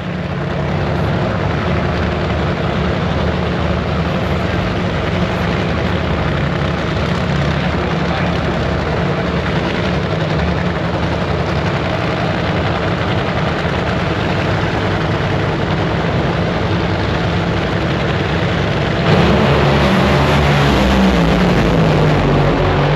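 Loud drag-racing engines running: a steady, pitched drone that shifts and bends in pitch, louder for a moment, about nineteen seconds in.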